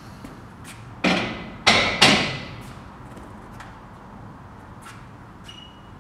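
Steel barbell set back onto the metal hooks of a squat rack: three sharp metallic clanks within about a second, each ringing briefly, followed by a few faint clicks.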